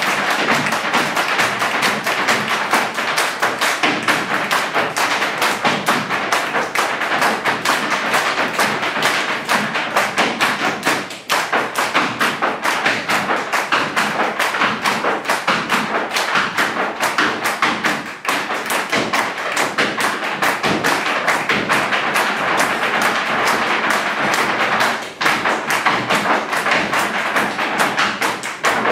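Irish step dancers' hard shoes beating out a rapid, dense stream of taps and stamps on the stage floor, with brief breaks about 11, 18 and 25 seconds in.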